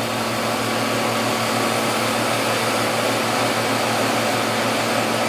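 Wood lathe running at high speed with a steady hum and whir, while a cloth rubs friction finish into the inside of the spinning wooden goblet cup.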